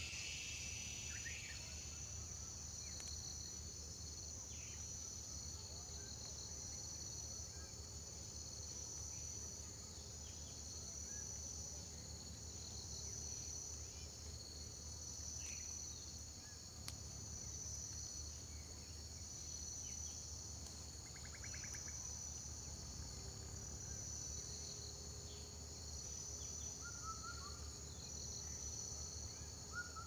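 Insect chorus in hill grassland: a steady high shrill that pulses in a slow, even rhythm, over a low rumble, with a few short bird chirps near the end.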